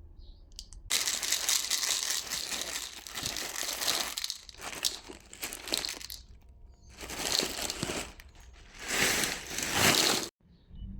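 Packaging being crinkled and crumpled by hand, in four irregular rustling bursts that cut off abruptly near the end.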